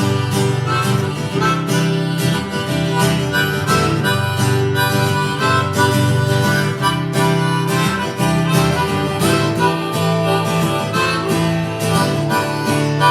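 Harmonica playing an instrumental solo over strummed acoustic guitar.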